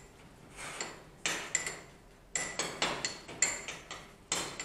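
Metal teaspoon clinking against the inside of a stemmed dessert glass as it stirs and mashes a coffee-soaked biscuit: a run of sharp, ringing clinks, starting about a second in.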